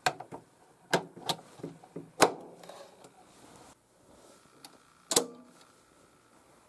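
Setup handling noise: a series of sharp clicks and knocks as equipment is picked up, set down and connected. The loudest knock comes about two seconds in, and another comes about five seconds in.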